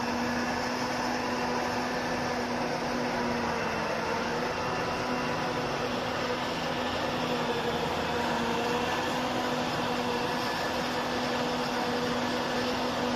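Tracked self-propelled silage harvester's diesel engine and machinery running steadily, a constant drone with a steady hum.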